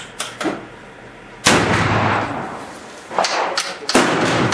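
An antique caplock muzzleloading rifle loaded with 96 grains of Swiss black powder fires a single shot about a second and a half in: one sharp crack that rings on and fades over about a second. A few light clicks come before it, and knocking and clatter from handling the rifle follow near the end.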